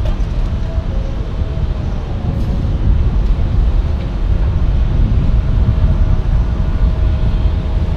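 Jet aircraft engines giving a loud, steady low rumble with a faint steady whine above it.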